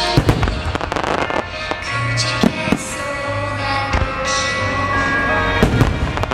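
Aerial firework shells bursting in a rapid series of sharp bangs, thickest near the start and again near the end, over music played for the display.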